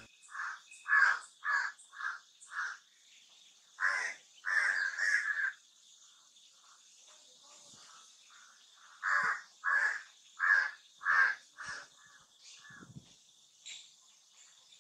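Short, harsh bird calls in quick runs of two or three a second, breaking off for a few seconds in the middle before starting again. A faint steady high tone runs underneath.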